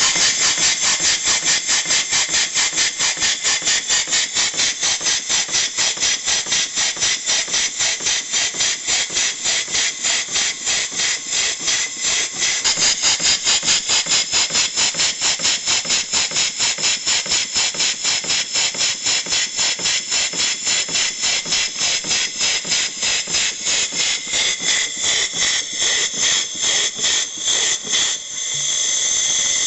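Small steam engine, probably home-built, running on compressed air: a rapid, even chuff of exhaust puffs, about three a second, with a sharp hiss to each. Near the end the puffs blur into a steady hiss of air.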